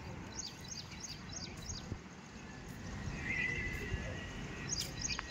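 Birds chirping in quick series of short, high, descending notes, about four a second, over a steady low outdoor rumble, with a short buzzy call about three seconds in.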